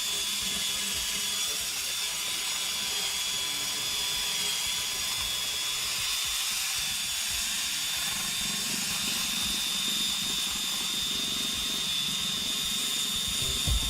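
Makita power tool with a wire brush running steadily, scrubbing surface rust off cast iron, with a constant high thin whine over a hiss.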